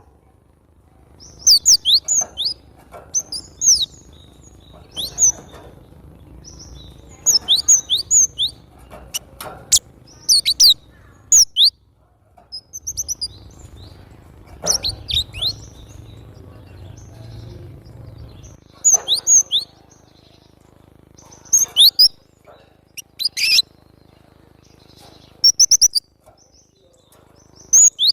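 Cinereous tit (glatik batu) singing vigorously: bursts of short, sharp, high chirps with quick pitch slides, repeated every second or two.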